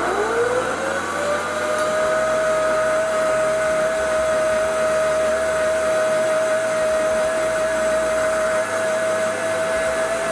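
Commercial blender under its sound-enclosure cover, blending ice with coconut water, milk, coffee and coconut meat into a frappe. Its motor whine rises in pitch over the first second as it comes up to speed, then runs steady and loud.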